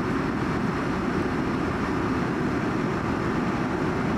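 Steady cabin noise inside an Airbus A330-300 in flight after takeoff: engine and airflow noise as an even, deep rumble with no breaks.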